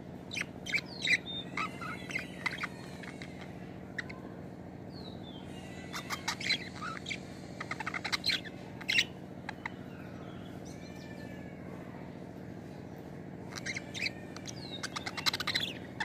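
Budgerigars chirping and warbling in three bursts of short chirps and whistled glides, with a steady low hum underneath.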